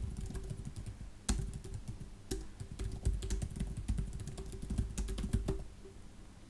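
Typing on a computer keyboard: a quick, irregular run of keystrokes that stops about a second before the end, over a steady low hum.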